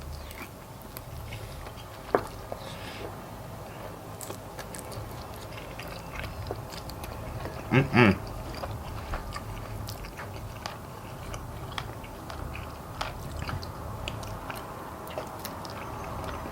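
Close-up chewing and crunching as chicken-wing bones are bitten and cracked, with irregular sharp cracks and small crackles. A short vocal sound from the eater comes about halfway through.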